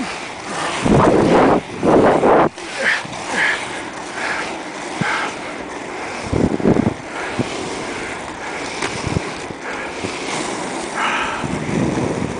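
Wind buffeting the microphone while skating fast downhill, over the steady rolling rumble of inline skate wheels on asphalt. Loud gusts hit about a second in, around two seconds, and again near seven seconds.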